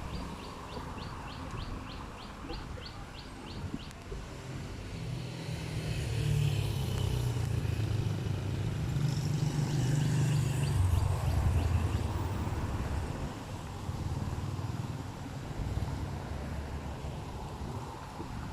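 Wind buffeting the microphone, with a deep rumble that swells through the middle. A bird gives rapid runs of short high chirps, about four a second, near the start and again later.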